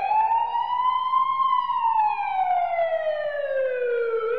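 Police siren sound effect: one slow wail that rises in pitch for about a second and a half, then falls slowly until it cuts off near the end.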